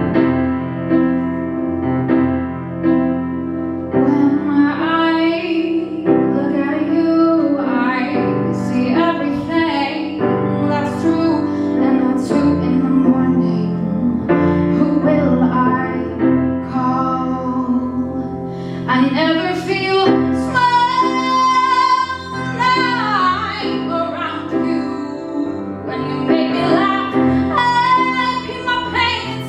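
A woman sings a slow ballad with piano accompaniment. The piano plays alone for the first few seconds, then the voice comes in, and it holds a long high note about two-thirds of the way through.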